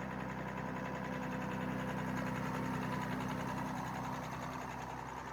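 Engine idling steadily with a constant, even hum.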